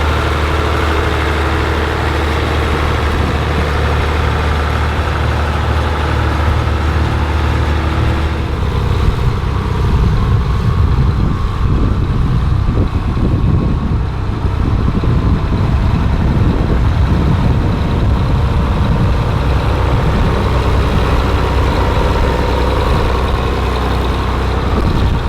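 Tractor engine running at a steady idle, changing about eight seconds in to a rougher, more uneven engine sound.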